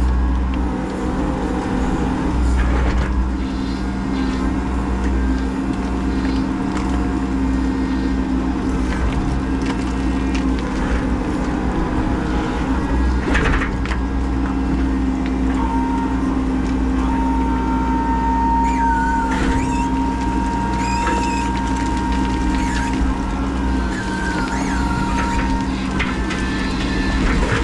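Menzi Muck M335 spider excavator running steadily, heard from its open cab, with the hydraulics working the boom and bucket and occasional short knocks. From a little past the middle, a thin high whine holds for about ten seconds.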